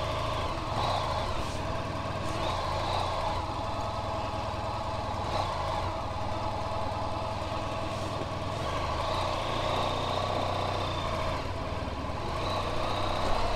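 Honda VFR1200X motorcycle's V4 engine running steadily at low revs, getting a little louder near the end.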